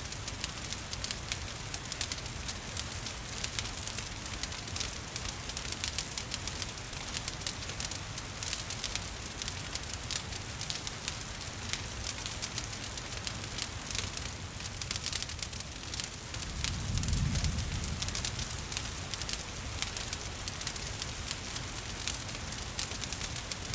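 Wood fire crackling in a fireplace with many small sharp pops over a steady hiss of rain. A low rumble swells and fades about two-thirds of the way through.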